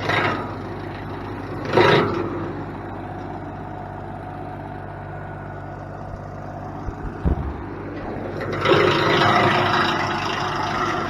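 Tractor-driven wood chipper running steadily, with brief bursts of grinding as small limbs are fed in, the loudest about two seconds in. From about eight and a half seconds a longer stretch of chipping as a branch is chewed through.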